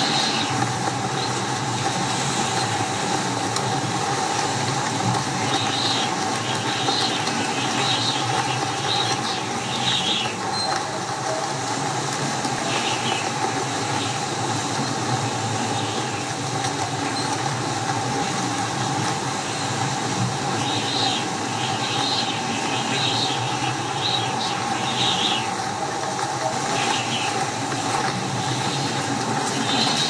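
Strong windstorm wind blowing steadily, with a constant whistling tone through it and two spells of short, high-pitched squeals.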